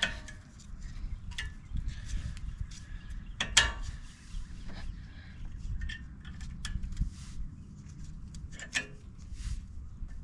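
Metal brake parts being handled and fitted: scattered light clicks and taps, the loudest about three and a half seconds in and again near nine seconds, over a steady low rumble.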